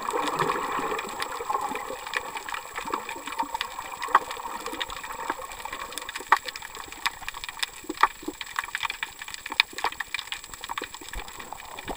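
Sea water gurgling and sloshing around a camera held underwater, with many irregular sharp clicks and crackles, a few louder than the rest. The gurgling is strongest in the first two seconds.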